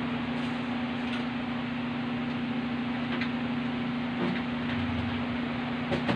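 Steady electrical hum and hiss from the audio gear, with a few faint clicks and knocks of handling cables and plugs.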